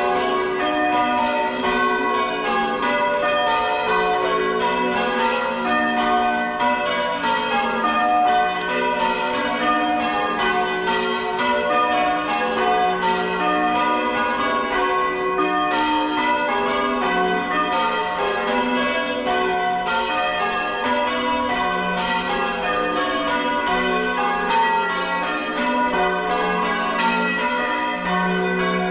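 A ring of six church bells being change-rung by hand-ringers, struck one after another in a steady, unbroken stream of overlapping tones.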